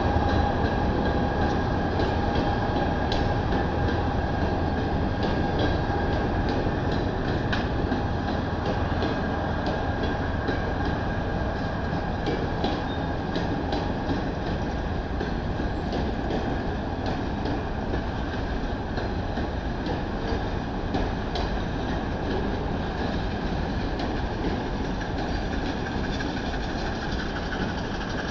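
Freight train cars rolling past on the rails: a steady rumble with scattered wheel clicks over the rail joints, slowly growing quieter. A faint high squeal from the wheels fades out in the first several seconds.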